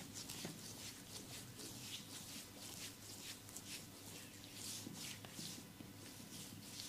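Hands rubbing and stroking skin during a face and head massage: a run of soft, irregular swishes, a few a second, over a faint steady hum.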